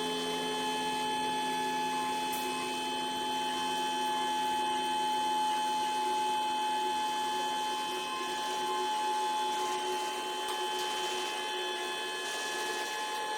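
Woodworking cold press machine running with a steady machine whine made of several constant tones over a light hiss.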